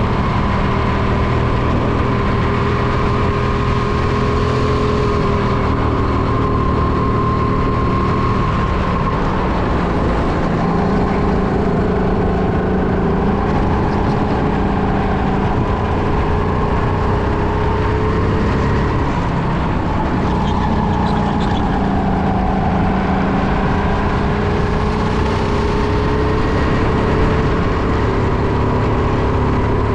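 Go-kart engine running hard at racing speed. Its pitch dips and climbs again several times as the kart brakes for corners and accelerates out of them.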